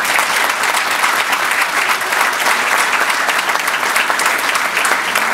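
Audience applauding steadily: a dense, sustained round of hand clapping.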